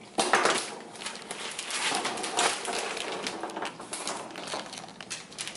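A dog crunching and gnawing on a frozen raw chicken foot: a dense run of cracks and crunches, loudest just after it starts.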